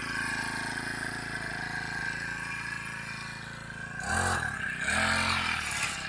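Backpack brush cutter engine idling steadily, then revved up briefly twice near the end.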